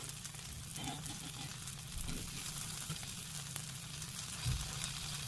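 Dandelion and oat fritters sizzling steadily in a little oil in a cast iron skillet, with a faint crackle. One soft knock comes about four and a half seconds in.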